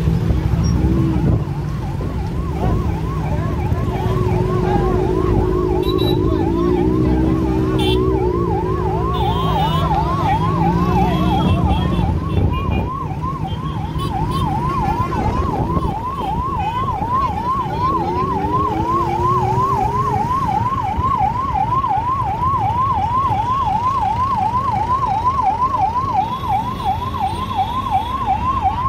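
Fire engine's electronic siren in a fast yelp, sweeping up and down about two to three times a second, starting about a second in and going on without a break, with low vehicle rumble underneath.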